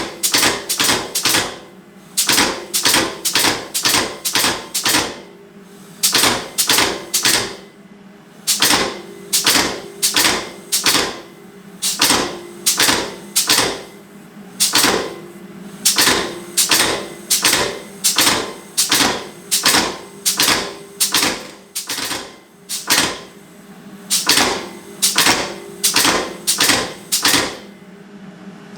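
Hand hammer striking hot steel on an anvil: forging blows in runs of several strikes, about two to three a second, with short pauses between runs and the anvil ringing between blows. A steady low hum runs underneath.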